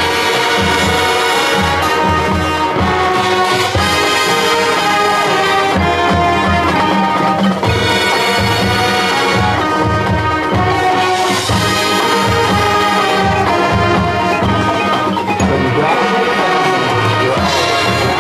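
Marching band's brass section playing a slow ballad in held, swelling chords.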